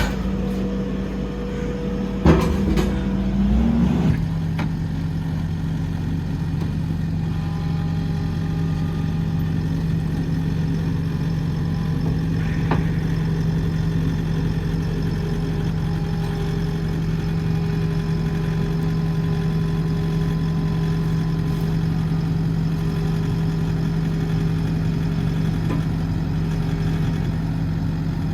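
Skid steer engine running steadily, with a couple of sharp clanks about two seconds in. Its note shifts around four seconds and then holds steady.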